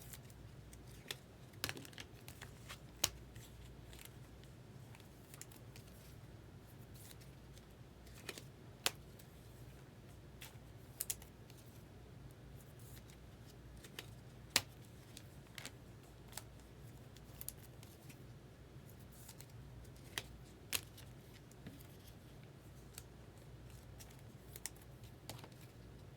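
Scattered light clicks and taps of trading cards and packs being handled and opened by hand, at irregular intervals over a faint steady low hum.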